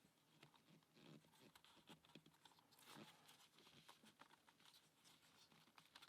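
Near silence, with faint scattered clicks and small knocks of wooden puzzle parts being handled and turned; the clearest knock comes about three seconds in.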